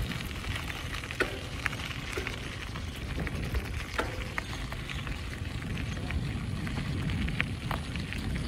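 Wind buffeting the microphone as a steady low rumble, with scattered light ticks and crackles over it.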